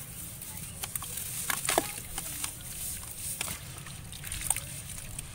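Crumbling lumps of wet sand-cement dropping into a basin of muddy water, with small splashes and a few louder plops in the middle, then hands sloshing through the water.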